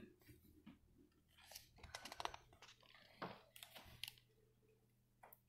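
Faint rustling and light taps of a hardcover picture book's page being turned by hand, a scatter of soft clicks in the middle of an otherwise quiet stretch.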